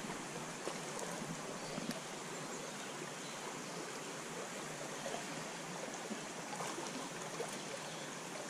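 Creek water running steadily, with a few faint short ticks.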